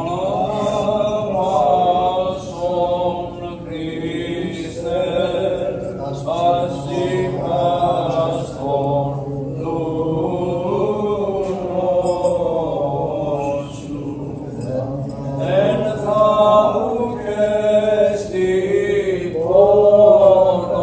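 Greek Orthodox Byzantine chant of a memorial hymn: slow, melismatic sung lines in Greek over a steady low note held underneath.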